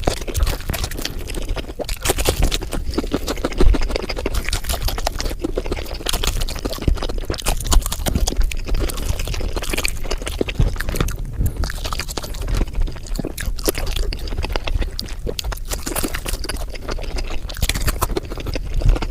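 Close-miked eating of fried chicken: a dense run of crunching and chewing sounds.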